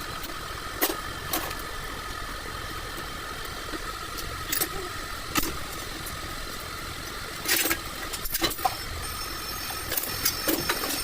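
A steady mechanical hum with scattered sharp metallic clicks and knocks, a few of them coming in quick clusters in the second half.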